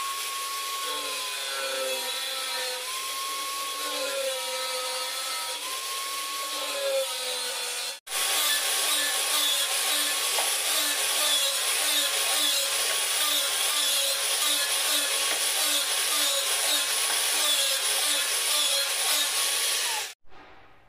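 Angle grinder with a thin cutting disc cutting through grey PVC drain pipe, its motor whine wavering as the disc bites and the pipe is turned. A brief break about eight seconds in, then it runs on and cuts off near the end.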